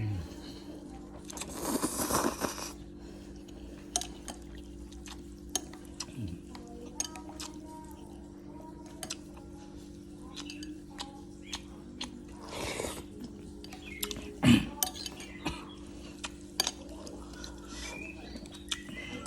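Spoon clinking and scraping against a bowl of bakso meatball soup during eating, with many sharp irregular clicks and a few longer noisy sounds, the loudest about fourteen seconds in. A steady low hum runs underneath.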